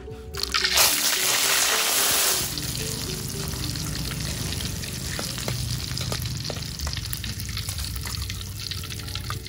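Chilies and tomato for sambal dropped into hot oil in an aluminium wok. A loud burst of sizzling comes about half a second in and eases after a couple of seconds into steady frying, with scattered crackles and pops.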